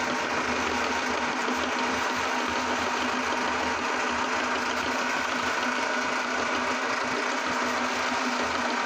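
Belt-driven electric meat grinder running steadily, a constant machine hum as its auger pushes cream wafer cookies out through the cutting plate as crumbs.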